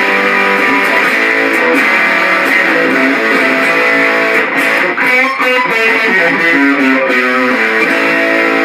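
Alvarez Dana II electric guitar with its Triforce pickup being played through a Boss DS-1 distortion pedal set to full distortion, into a 1981 Peavey Backstage amp with a 10-inch speaker: continuous heavily distorted riffing with shifting notes and chords.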